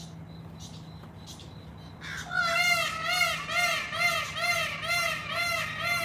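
A peafowl giving a rapid run of short, loud, arched calls, about two and a half a second, starting about two seconds in. Before that, a faint regular insect ticking.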